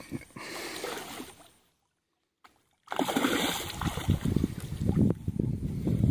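A hooked fish thrashing and splashing at the water's surface close to the bank, under a loud, gusty low rumble on the microphone. The sound cuts out completely for about a second before the splashing comes in.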